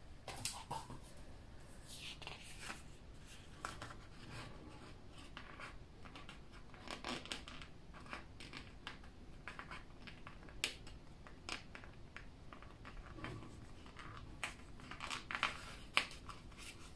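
Paper planner stickers being peeled from their backing and pressed onto a planner page: soft crinkling and scratchy rustles with scattered small clicks and taps, the sharpest click near the end.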